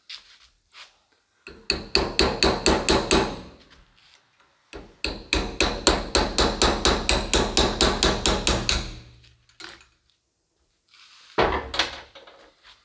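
Hammer striking a punch to drive the dust shield off a CV joint held in a bench vise: two quick runs of metallic strikes, about five a second, the second run longer. A short knock follows near the end.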